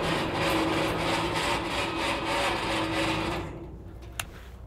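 Switch-N-Go hydraulic hoist on a Hino 195 truck running under load, a steady mechanical whirring with a fast flutter, that stops about three and a half seconds in; a single sharp click follows a little later.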